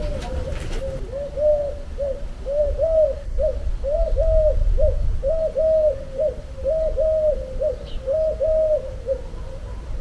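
A dove cooing a repeated phrase over and over, each phrase two longer notes and a short one, coming about every second and a half, and fading out near the end.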